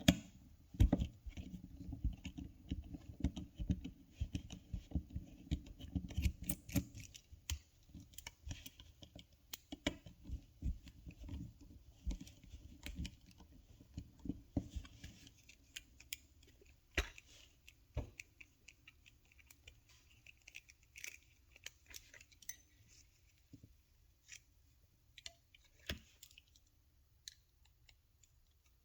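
Small screwdriver turning tiny screws out of a plastic key fob shell: a run of light clicks and ticks, close together for the first several seconds and sparser after that.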